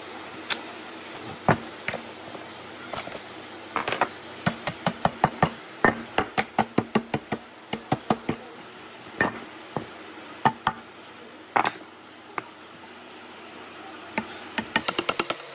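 Wooden mallet striking a chisel to knock out the waste between saw kerfs in a timber notch, breaking the thin wood slices away. Sharp separate knocks, a few scattered at first, then a fast run of blows in the middle at about three a second, then scattered again.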